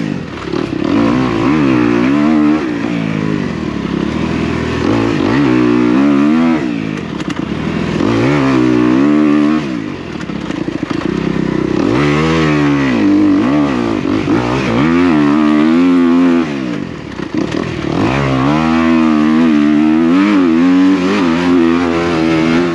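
2023 Kawasaki KX250's single-cylinder four-stroke engine revving up and down as the dirt bike is ridden along a track, heard from on board. Its pitch climbs and drops again and again with the throttle, with short lulls about ten and seventeen seconds in.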